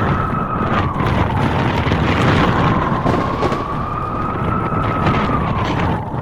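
Blizzard wind blowing hard, a steady roar with a whistling howl that slowly rises and falls in pitch.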